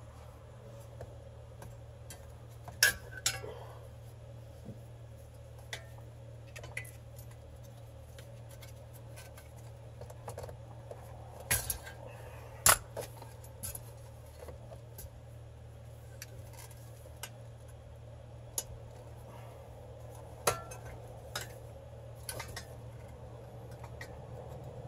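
Irregular sharp clicks and clinks of needle-nose pliers working plastic wiring-harness connectors and metal brackets under a car dashboard, a few louder than the rest, over a faint steady low hum.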